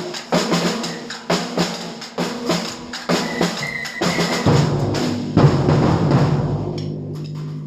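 Samba percussion band playing a groove: a steady pattern of drum strikes with deep bass drums underneath. About four and a half seconds in, the low drums grow heavier and more continuous.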